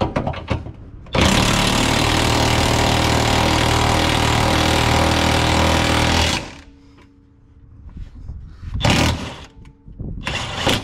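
An impact wrench runs continuously for about five seconds starting about a second in, driving a subframe bolt or bushing home. Two shorter loud noises follow near the end.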